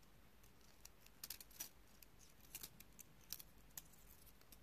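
A handful of faint, scattered light clicks and ticks as the thin metal clock spring and small plastic parts of a wind-up toy mechanism are handled and unwound by fingers.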